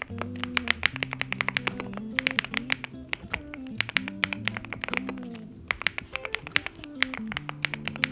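Typing on a NuPhy Gem80 mechanical keyboard with Mint linear switches and double-shot PBT mSA keycaps: sharp keystroke clicks in quick runs with brief pauses. Background guitar music plays under the typing.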